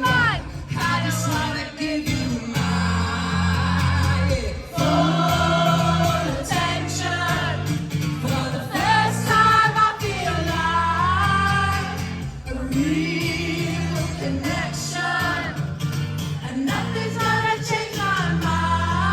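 Live acoustic pop song: acoustic guitar strumming under a male lead vocal, with the audience singing along.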